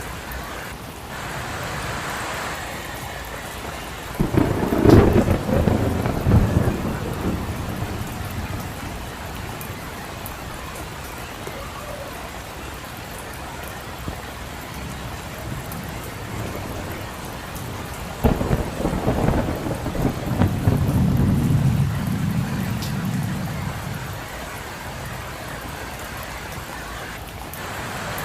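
Steady rain with two claps of thunder. One breaks sharply about four seconds in and dies away over a few seconds. The other breaks about eighteen seconds in and rolls on as a long low rumble.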